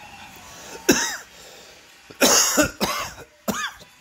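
A man's voice, heard through a TV speaker, gives four short, loud, raspy vocal outbursts that rise and fall in pitch. The first comes about a second in and the other three follow closely near the end. These are mock-pained reactions as he knots an ugly tie around his neck.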